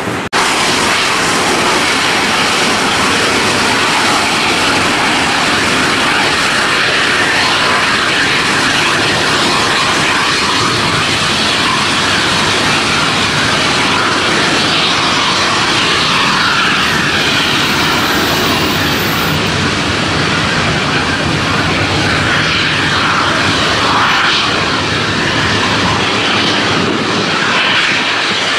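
Boeing 747SP taxiing, its four jet engines running with a loud, steady roar.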